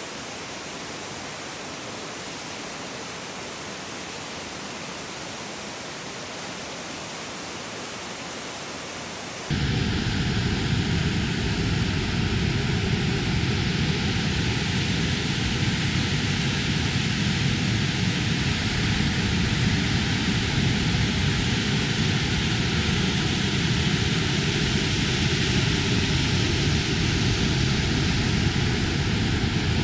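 Steady rushing of a waterfall. About a third of the way in it jumps suddenly to a much louder, fuller rush with a deep rumble.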